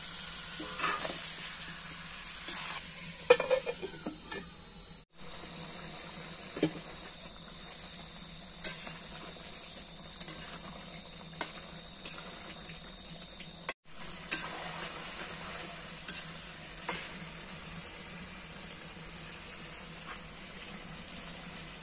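Chicken, potatoes and tomatoes sizzling steadily in a metal kadai as the spiced meat is fried down (kosha stage of a Bengali curry), with a spatula now and then scraping and knocking against the pan as it is stirred. The sound cuts out for an instant twice.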